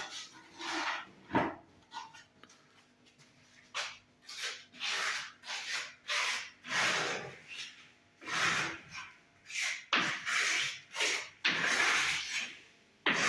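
Repeated rough scraping strokes during tiling work on a fireplace, each about half a second to a second long, coming in irregular runs with short pauses between.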